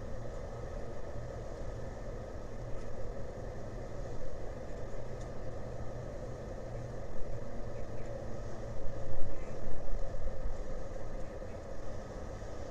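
Vehicle engines running with a steady low rumble and a constant hum, louder in irregular swells about seven to ten seconds in.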